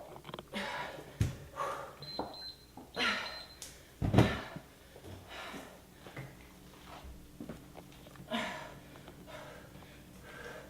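Heavy, rhythmic exertion breaths during an exercise set, a few seconds apart, with two low thumps, the louder one about four seconds in. A brief steady high tone sounds between about two and four seconds in.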